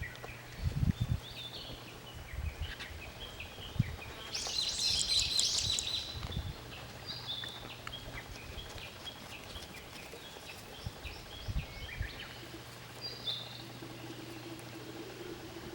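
Small birds chirping on and off, with one louder, denser burst of song about four seconds in. A few low thumps and a faint steady hum sit underneath.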